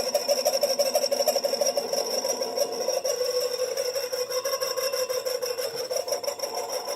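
Moskvich-410 heater fan's small electric motor running on bench power, a steady whine laced with a dense scratchy rasp from its brushes. The brush sticks and the revs are weak, but the motor is bedding in as it runs.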